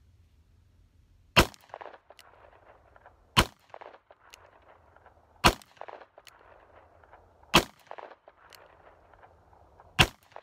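Five shots from a Taurus Tracker .44 Magnum revolver loaded with .44 Special 200-grain rounds, fired at a slow, even pace about two seconds apart. Each sharp report is followed by a short echo.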